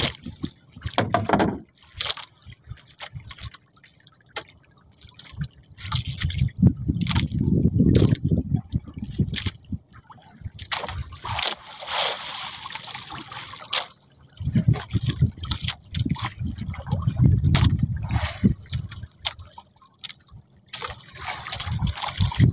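Seawater sloshing and splashing against a small fishing boat, with two long bouts of low rumbling about a third and two-thirds of the way through.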